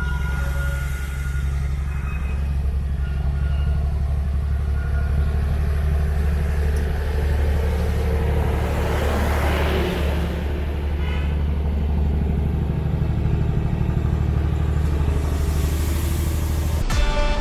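A steady, low engine drone, with a truck going past about nine to ten seconds in.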